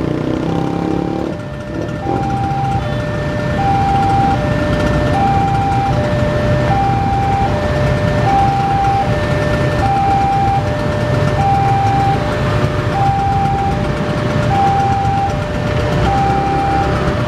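Railway level-crossing alarm sounding, a two-tone high-low chime repeating about once every one and a half seconds to warn that a train is approaching. Under it runs a steady low engine rumble.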